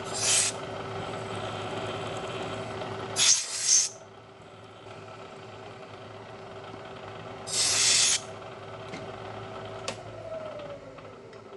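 Bridgeport milling machine running, with a number 7 drill cutting the tap-drill hole for a 1/4-20 thread in an aluminium vise jaw. A steady motor hum is heard with a rougher cutting noise in the first few seconds, and three short hissing bursts come at about 0, 3 and 8 seconds in. Near the end a tone drops in pitch as the machine winds down.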